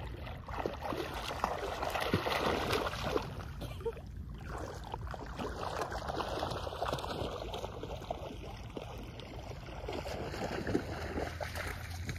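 Shallow water splashing and sloshing as a person and a puppy wade through it, with small irregular splashes throughout.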